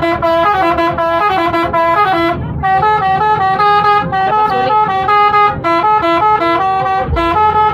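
Indonesian bus telolet horn, a set of multi-note air horns, playing a fast melody of short stepped notes almost without pause. The notes break off briefly about two and a half seconds in.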